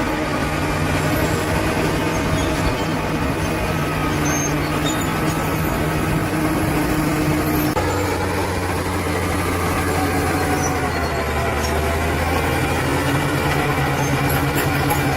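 Bulldozer's heavy diesel engine running under load. Its note drops about halfway through and picks up again near the end.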